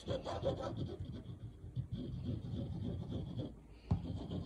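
Glue being spread over paper with the tip of a glue bottle: quick back-and-forth scratchy rubbing strokes. A single sharp tap comes a little before the end.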